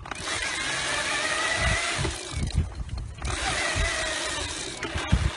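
Electric assist motor of a dog-powered bike whining as it kicks in to help the pedals: a steady high whine over a rushing noise that runs about two seconds, drops out for about a second, then comes back for another two seconds.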